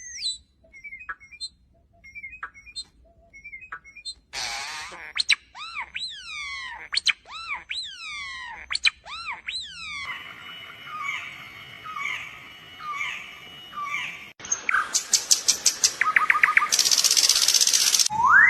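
Calls of several different birds, one after another with abrupt changes: short chirps, then loud down-sweeping whistled calls, then evenly repeated short notes, then rapid trills and a buzzy call near the end.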